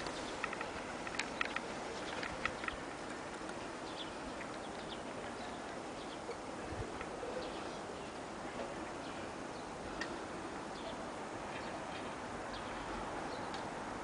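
Steady outdoor background hiss, with a handful of short, sharp ticks or chirps in the first few seconds and a few fainter ones later.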